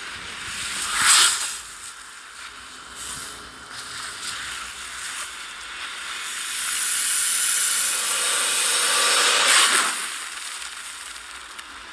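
Whoosh sound effects for a snake bursting into butterflies: a short rising whoosh about a second in, then a long airy rush that swells from about six seconds and cuts off about ten seconds in.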